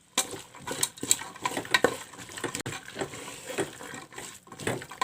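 Boiled chickpeas being added to the masala in a cooking pot and stirred with a spoon: irregular knocks and scrapes of metal on the pot, with wet sloshing.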